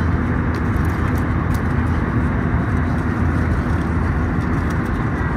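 Steady rushing cabin noise of an Airbus A320 airliner in flight, with a few faint light clicks as the meal tray and its plastic wrapping are handled.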